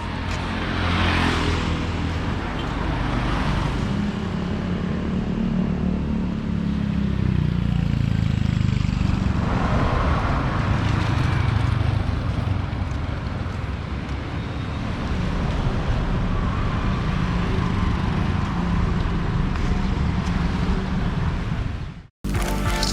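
Road traffic: vehicles running and passing, with a steady engine rumble and two louder passes about a second in and around ten seconds in. It cuts off suddenly near the end.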